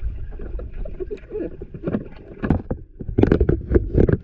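Muffled water churning and bubbling picked up by a camera held underwater in a swimming pool, with a run of louder knocks and bursts in the last second.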